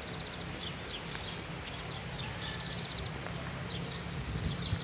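Porsche 911's flat-six engine idling as a low, steady rumble, with small birds chirping in short, rapid high trills over it.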